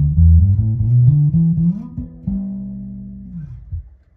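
1977 Guild Starfire II electric bass played fingerstyle on the middle pickup setting with the tone rolled off, giving a dark, muted sound. A short run of notes ends with a last note left to ring for about a second and a half, which slides down in pitch and dies away a little before the end.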